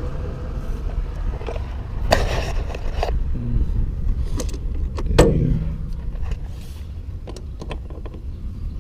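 Scattered metallic clicks and knocks of hand tools and metal fittings as the oil filter relocation fittings are tightened, the loudest knock about five seconds in with a short ring after it, over a steady low rumble.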